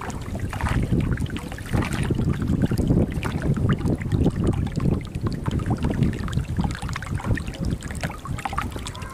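Water gurgling and splashing along the hull of a small boat moving through the water, with wind buffeting the microphone in an uneven low rumble.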